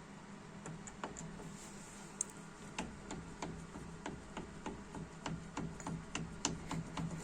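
Loose front brake caliper and pads on a Chevrolet Lanos clicking and clacking as the assembly is rocked by hand: a string of short, sharp metallic knocks, sparse at first and then about two a second. The play comes from bald pads and worn caliper guide pins, the cause of the knocking brakes.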